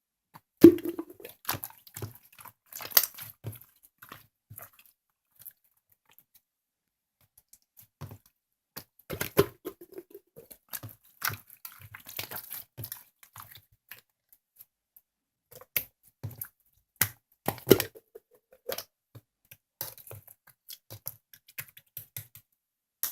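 Slime being squished, poked and stretched by hand, making irregular wet crackles, clicks and small pops, with a sharp pop about a second in and a pause of a few seconds before the squishing starts again.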